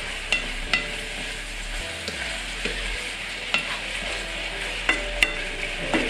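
Chicken and mushrooms sizzling as they fry in a pan, with a utensil clicking against the pan now and then as it is stirred, about eight taps in all.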